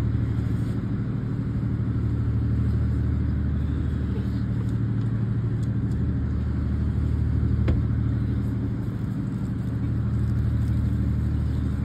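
Boat engine idling with a steady low drone. A single sharp click sounds about two-thirds of the way through.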